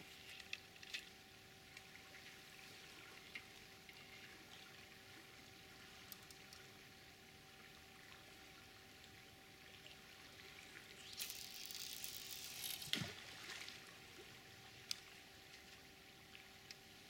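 Faint, steady flow of a fast river with scattered small clicks. About eleven seconds in, a louder rush of hiss lasting about two seconds as a barbel rod is cast out and line runs off the reel.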